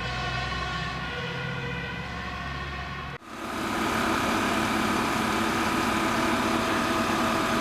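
Fire engine siren sounding in the distance with a low steady rumble, then, after a sudden cut about three seconds in, a parked fire engine running steadily with a constant whine.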